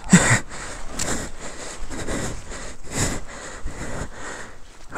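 A person breathing hard, with loud noisy breaths about once a second.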